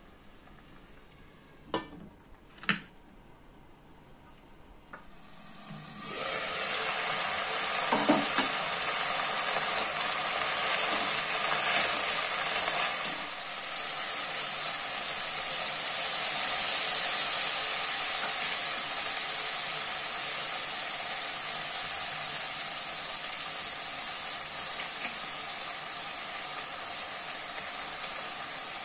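Diced chicken frying in oil in a nonstick pan. It is quiet at first with two sharp clicks. About six seconds in, a loud steady sizzle begins and carries on, easing slightly partway through.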